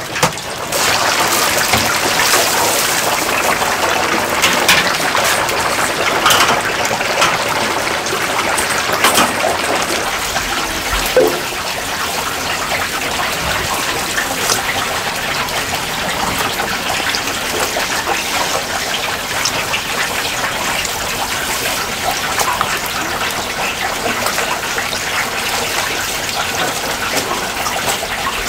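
Battered chicken deep-frying in a vat of oil: a steady, crackling sizzle.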